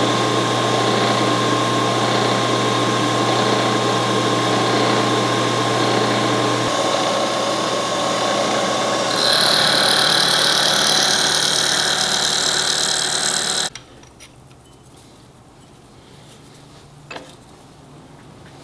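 Vertical milling machine running, its cutter machining a metal part held in a vise: a steady motor hum and whine with cutting noise that grows louder and hissier about halfway through. It cuts off suddenly about three-quarters of the way in, leaving low shop noise and one click.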